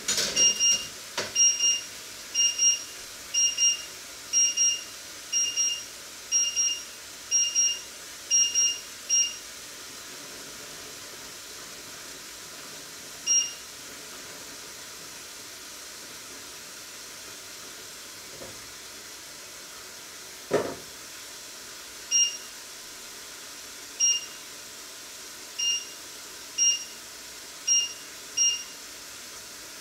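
Electronic beeping from a kitchen appliance: paired beeps about once a second for the first nine seconds, then single beeps at uneven gaps in the last third. A steady hiss runs underneath, and there is one sharp knock about two-thirds through.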